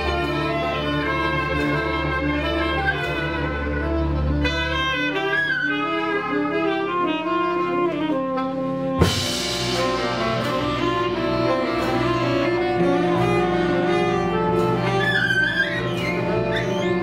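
Live ensemble music of held bowed-string notes, cello among them, with saxophone. About halfway through comes a sudden loud hit with a bright ringing wash, and new sustained notes set in after it; wavering high notes enter near the end.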